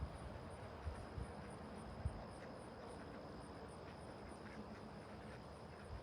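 Faint insects chirping steadily: an even high hum with a rapid pulsing trill above it. A couple of soft low thumps come in the first two seconds.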